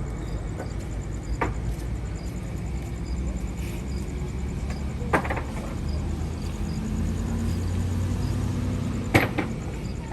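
Steady low rumble of a vehicle on the move, with three sharp knocks: one about a second and a half in, one near the middle and one near the end.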